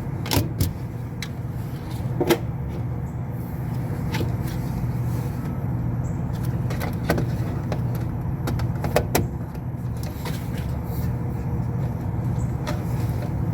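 Steady low mechanical hum of running machinery, with scattered small clicks and knocks as plug-in terminal connectors are pulled off and pushed onto a controller module.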